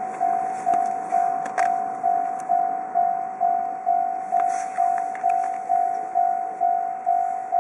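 Japanese level-crossing warning bell ringing in a steady, even rhythm of about two strikes a second, each strike a single ringing tone that fades before the next, warning that a train is approaching.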